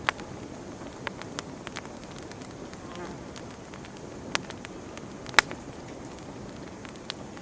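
Campfire burning, with wood crackling in sharp, irregular pops over a steady low rush of flame; the loudest pop comes about five seconds in.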